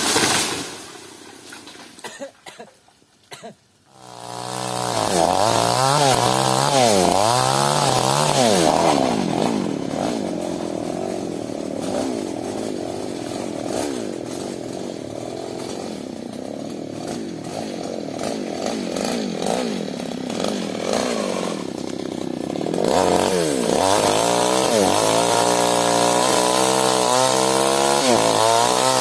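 A two-stroke New West chainsaw revs up and down, then runs steadier through the middle while cutting into sengon wood, and revs again in the last quarter. The first few seconds are quieter, with a few clicks.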